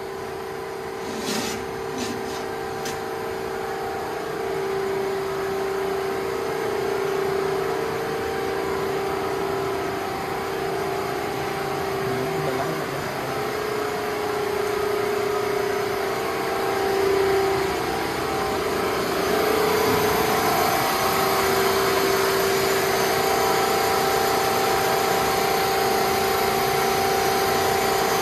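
Hydraulic power unit of a CNC hydraulic shear running: a 25 HP motor driving a gear pump, giving a steady hum with a slightly wavering tone, and a few short knocks in the first three seconds.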